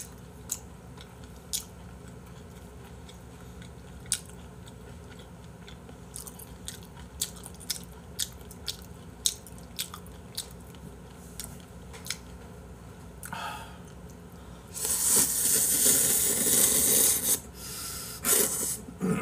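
Close-miked eating sounds: chewing with sharp, scattered mouth clicks and smacks, then a loud slurp of noodles about fifteen seconds in lasting two to three seconds, with shorter slurps near the end.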